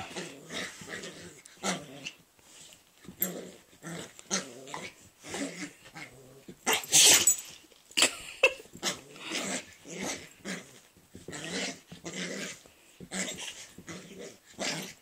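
A Pomeranian and a pit bull play-fighting, growling in short repeated bursts, with a louder, sharper cry about seven seconds in.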